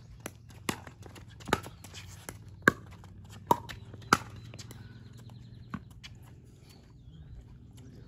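Pickleball rally: paddles hitting a plastic pickleball in a string of sharp pops, about six over four seconds, then one fainter knock near six seconds in as the point ends.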